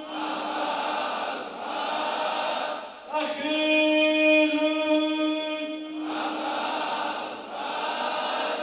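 A group of men chanting a mourning lament (noha) together, answered in the middle by a solo male reciter who holds one long sung note for about three seconds before the group comes back in.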